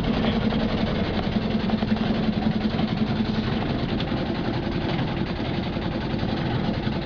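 Fishing boat's engine running steadily with a constant low hum, over the rushing noise of the boat under way.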